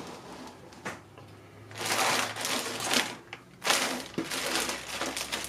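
Hard plastic pieces rattling and rustling as they are handled: a sharp click about a second in, then two spells of clattering, crackly handling noise, the longer one about two seconds in.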